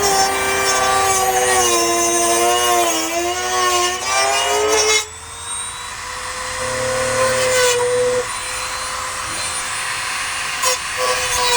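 A handheld power tool's motor running under load, its pitch wavering for about five seconds. Then it suddenly goes quieter and runs at a steady pitch with a thin high whine.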